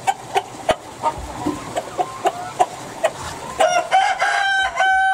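Kokok Balenggek rooster crowing: a long, pitched crow that begins about three and a half seconds in and moves through several short stepped segments, the breed's characteristic multi-step crow. Before it, chickens cluck in short calls, with a few sharp clicks.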